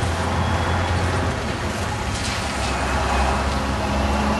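Freight cars rolling on the rails as the end of the train pulls away: a steady noise with a low rumble underneath.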